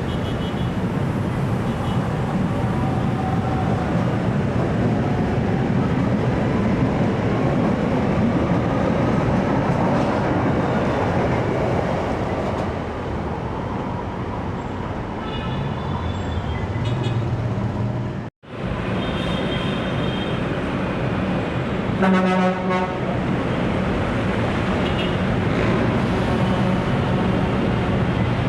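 LRT-1 light rail train running through the station with a steady rumble and low motor hum. Its horn gives a short blast about two-thirds of the way through.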